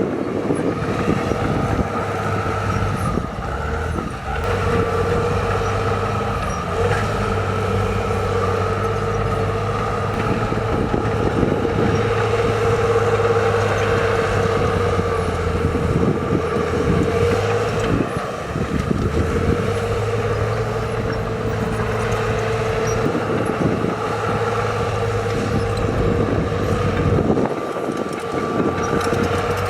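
Heavy diesel earthmoving machinery running steadily, a continuous engine drone with a held whine above it.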